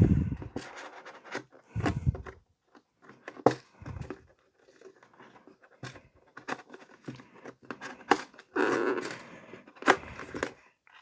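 Cardboard box and packaging being handled and opened: scattered rustles, scrapes and light taps, with a longer rustle about nine seconds in.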